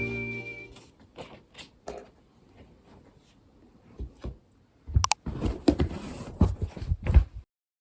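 A held note of background music fades out at the start. Scattered faint clicks follow, then from about five seconds in a quick run of louder clicks and knocks, which cuts off suddenly.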